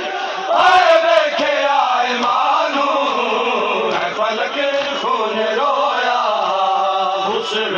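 Men's voices chanting a noha, the Shia mourning lament of Muharram, in a continuous sung chant.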